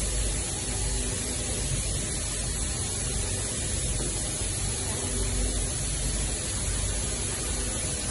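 Richpeace flatbed inkjet printing and cutting machine running: a steady rushing noise, with faint short motor hums coming and going as the print-head gantry moves over the sheet.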